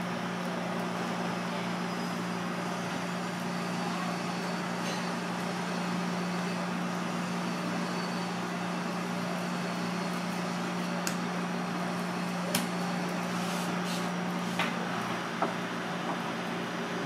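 Steady machine hum with a low drone, like a kitchen fan or refrigeration unit running. A few light clicks and knocks in the second half come from the knife and fish being handled on the cutting board and a metal tray.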